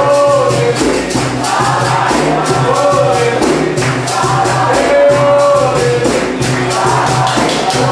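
A group singing a capoeira song over a steady beat of hand clapping and percussion.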